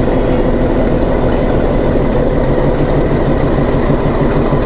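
Metre-gauge diesel locomotive No. 6681 of the Nilgiri Mountain Railway running close by: a loud, steady heavy engine drone with a thin steady whine above it.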